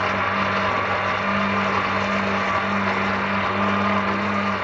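Electric blender running steadily, its motor giving a constant hum as it grinds a thick mixture of green leaves, coconut and water into a smooth liquid.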